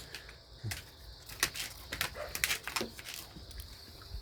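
Jindo dogs at close quarters: a few short low growls and a cluster of sharp clicks and snaps in the middle. Insects chirr steadily throughout.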